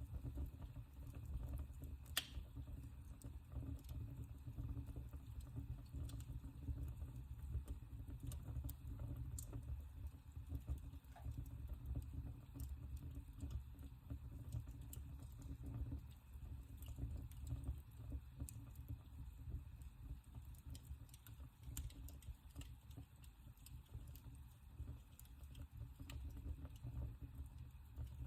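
Wood fire crackling in a fireplace: scattered sharp ticks and pops over a low steady rumble of the flames, with one louder pop about two seconds in.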